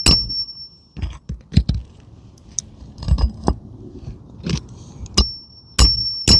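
Hammer driving roofing nails back into an asphalt shingle, struck lightly through a metal shingle-repair nailing tool: about a dozen irregular sharp taps. Several of the taps ring with a high metallic tone, near the start and again near the end.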